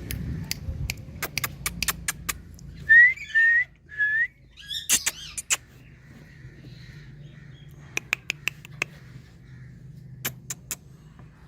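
Indian ringneck parrot making runs of sharp, quick clicks, its imitation of water drops, with three short rising whistles about three seconds in.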